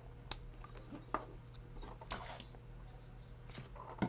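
Faint clicks and rustles of a small plastic two-pin wire connector being handled and pushed together, with the wires moving in the hands. A low steady hum runs underneath.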